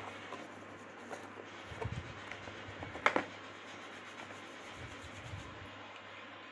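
Faint handling sounds: hands rummaging in a cardboard box, a sharp click about three seconds in, then hands rubbing together and patting the cheeks while putting on makeup.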